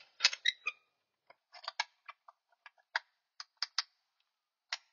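An irregular series of about a dozen small, sharp clicks and taps as the table insert is pressed and snapped into place in the Shopsmith bandsaw table around the blade.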